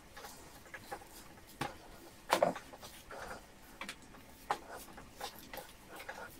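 Hands rolling a raw, salt-cured pork flank tightly in a metal tray: irregular soft wet squelches and taps of the sticky meat, the loudest about two and a half seconds in.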